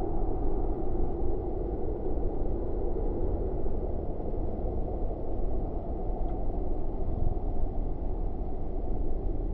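Steady, muffled low rumble of road traffic, with no distinct events standing out.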